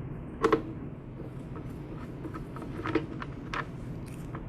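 A few short clicks and knocks of parts and tools being handled while a lawn mower's engine cover is taken off: a sharp double knock about half a second in, then lighter ones near the three-second mark, over a steady low hum.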